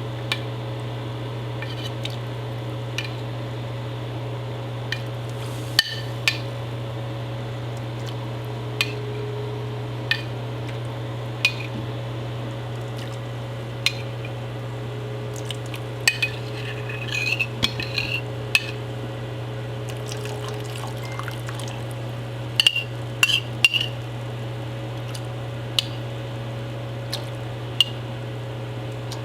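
Utensil clinking against a cooking pot now and then while water with annatto colouring is stirred in it, with a few quick runs of clinks around the middle and again later, over a steady low hum.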